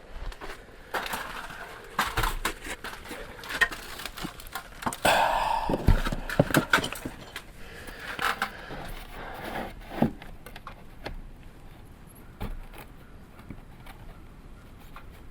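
Irregular knocks, clicks and rattles from hands-on work fitting wooden clapboard siding, with a rush of noise lasting about a second around the middle.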